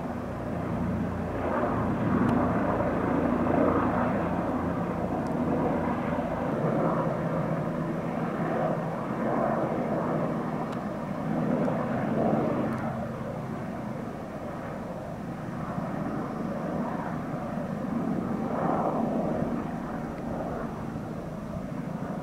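Two helicopters flying, a steady drone of rotors and engines that swells and fades every few seconds.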